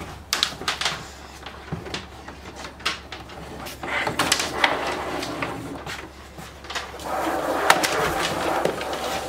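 Plastic-insulated electrical wire being handled and pulled along the wooden wall studs, rustling and scraping, with scattered light clicks and knocks. Longer stretches of scraping come about four seconds in and again about seven seconds in.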